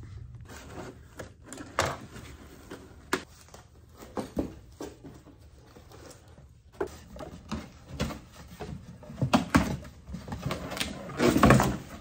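Cardboard shipping box being opened: a box cutter slitting the packing tape, then the cardboard flaps handled, giving scattered knocks and rustles with a louder scraping rustle near the end.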